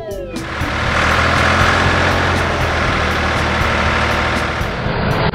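Tractor engine sound effect: a heavy engine running steadily with a low drone as the tractor pulls away. It comes in just as a short falling whistle dies away.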